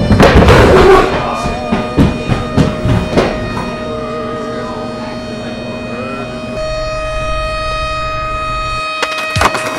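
Music made of sustained electronic tones, one wavering like a siren. It opens with a loud crash-like hit in the first second, followed by a few drum-like hits.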